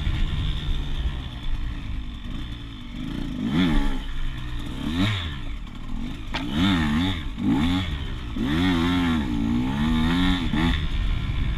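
Dirt bike engine revving up and down repeatedly as it is ridden along a rough trail, the pitch rising and falling several times in quick succession. A single sharp click about six seconds in.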